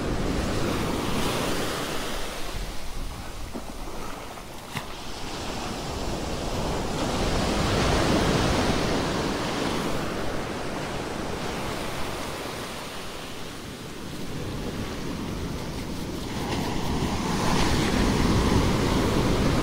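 Ocean surf breaking and washing up the shore, swelling louder as a wave comes in near the middle and again near the end.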